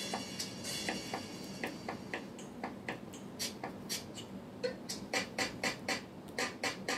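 Background music reduced to a light percussive beat of sharp clicks, about three to five a second.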